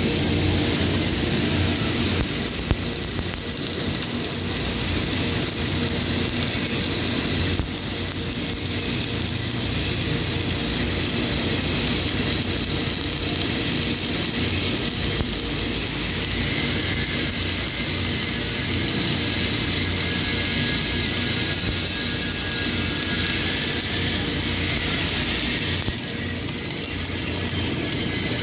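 Electric arc welding on heavy structural steel: a steady hissing, crackling arc that runs on continuously, dipping briefly about eight seconds in and again near the end.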